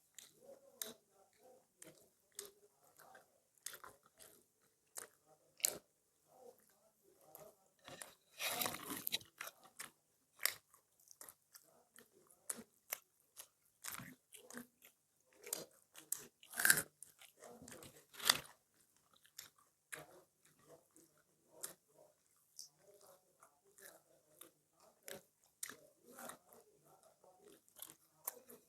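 People eating: irregular crunching bites and chewing, with short clicks and smacks, a longer crunchy burst about eight seconds in and a few sharp louder bites later on.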